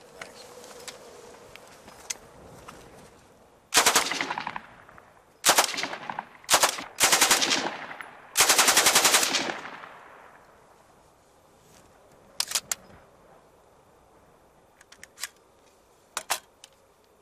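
Stoner 86 (ARES LMG-1) 5.56 mm light machine gun firing five short bursts of full-auto fire from a magazine, the last burst the longest, each trailing off in echo. A few isolated sharp clicks follow near the end.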